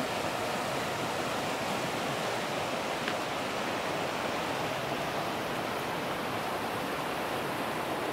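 Shallow river flowing over a bed of rounded cobbles and riffles: a steady rush of running water.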